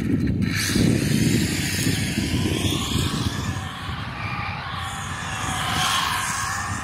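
Arrma Limitless brushless electric RC speed car running across asphalt, its motor whine and tire noise sweeping in pitch as it passes and circles, under a low rumble that fades over the last few seconds.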